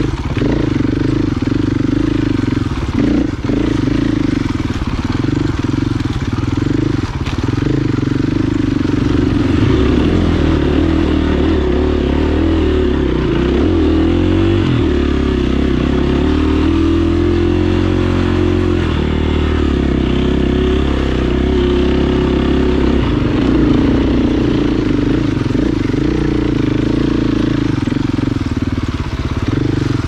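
Dirt bike engine running on a rough trail, the revs rising and falling as the throttle is worked, most markedly about a third of the way in.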